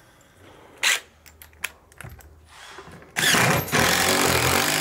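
A few light metal clicks as the lag bolt and washer are handled, then about three seconds in a cordless impact driver runs loud and steady, driving a lag bolt through the lift's metal upper arm into the wood framing.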